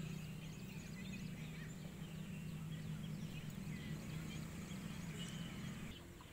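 Birds calling and chirping in the background, many short calls, over a steady low hum that drops away near the end.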